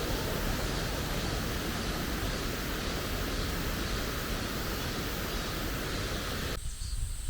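Steady rushing water, an even hiss, cutting off abruptly about six and a half seconds in.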